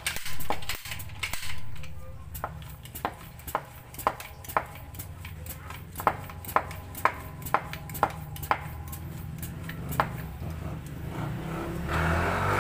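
Pump of an Estrella Parco footpump airgun being worked to charge it with air after the pump was rebuilt: a regular clicking stroke about twice a second. A hiss comes in near the end.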